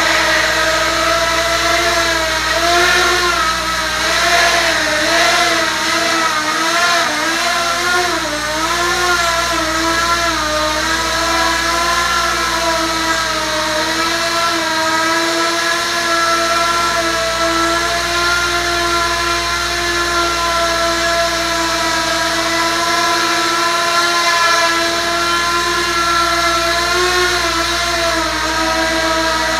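ROA Parkour 280 racing quadcopter's motors and propellers whining in flight. The pitch wavers up and down through the first ten seconds or so as the throttle is worked, then holds fairly steady while it hovers.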